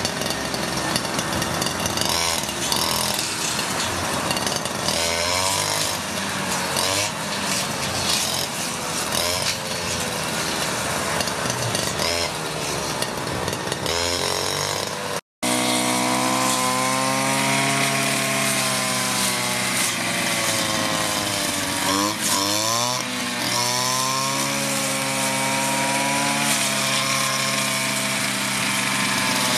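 Petrol brush cutter fitted with a homemade blade cut from a chainsaw bar, its engine revving up and down as the blade cuts grass and weeds. The sound drops out for an instant about halfway through, and after that the engine note rises and falls more cleanly.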